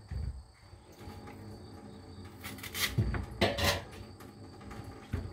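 A few short knocks and clatters of kitchen things being handled, bunched together about halfway through, over a quiet room background.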